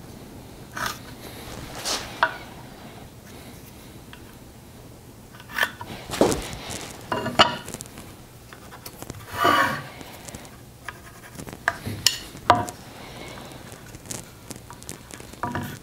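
Timber framing chisel and other hand tools knocking, clinking and scraping on wood while peg-hole positions are marked on a mortised timber, in scattered short strokes with a few longer scrapes.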